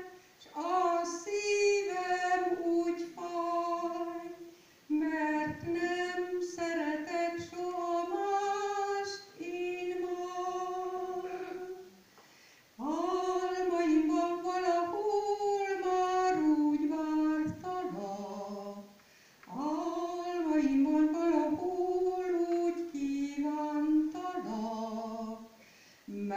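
A woman singing a Hungarian song (nóta) solo into a microphone, unaccompanied. She sings in long held phrases with vibrato, with short pauses between them.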